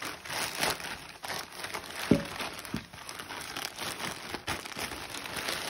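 Packaging crinkling and rustling as a parcel is handled and pulled at, trying to open it, with a couple of knocks about two seconds in.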